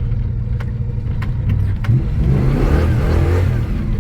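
Holden 308 V8 of a 1984 VH Commodore rumbling low, then revving up about two seconds in, its pitch rising and falling back.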